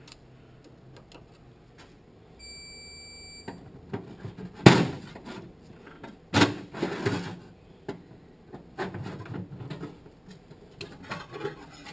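Metal clanks and scrapes of hand tools and a large steel snap ring being worked into a Toyota A340 automatic transmission case. The sharpest clank comes a little under five seconds in and another about six and a half seconds in, with a run of lighter knocks near the end. A short steady high beep lasts about a second, starting a little over two seconds in.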